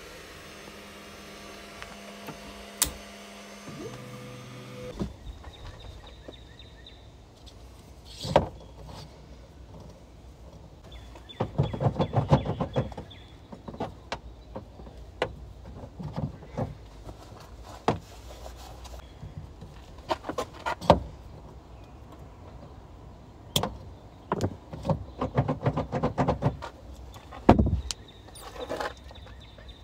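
A 3D printer's stepper motors whining in steady tones that step in pitch as the print head moves, cut off about five seconds in. After that come scattered clicks, knocks and rattles of hands working at a car's rear hatch and its interior latch release.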